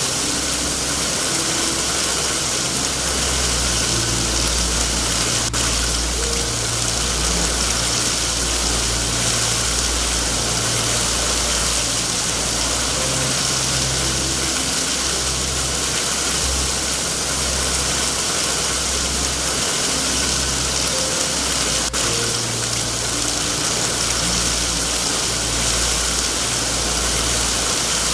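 Steady rain, an even hiss, over a continuous low rumble that swells and eases. Two faint clicks come through, one early and one about three quarters of the way in.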